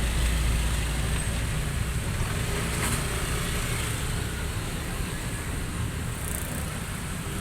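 Steady rumble of motor-vehicle traffic.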